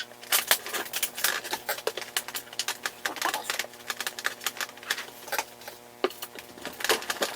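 Irregular clicking, crinkling and rustling of plastic packaging as a large action figure is handled and worked loose from its box and ties.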